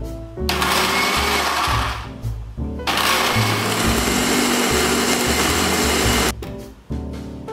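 Countertop electric blender chopping pandan leaves in water: a short run of about a second and a half, a brief stop, then a longer run of about three and a half seconds that cuts off near the end.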